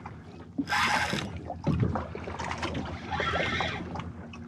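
Wind on the microphone and water against a small boat's hull while a spinning reel is cranked to bring in a hooked fish. A low steady hum runs underneath, and a short hissing burst comes about a second in.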